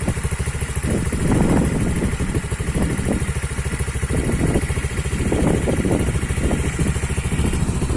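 Honda Click 125i scooter's single-cylinder engine running at idle through an aftermarket EXOS X6 exhaust, a steady putter that swells a little a few times. The pipe sounds quiet, close to the stock exhaust.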